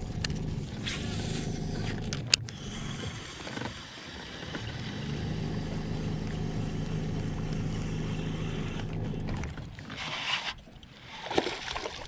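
Baitcasting reel being cranked steadily as a buzzbait is retrieved, a steady low whir, with a sharp click about two seconds in. Near the end come sudden splashy bursts as a bass strikes the buzzbait right at the boat.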